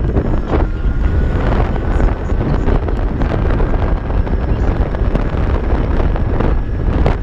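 Wind buffeting the microphone on a moving Kaabo Mantis Pro dual-motor electric scooter, over a heavy low rumble, with a faint steady whine from the motors. A few sharp knocks come through, about half a second in, about two seconds in and near the end.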